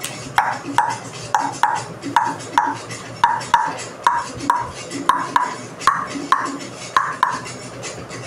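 A hand-percussion rhythm of sharp, pitched knocks, mostly in pairs at about two to three strikes a second, in a salsa-style pattern; it stops about a second before the end.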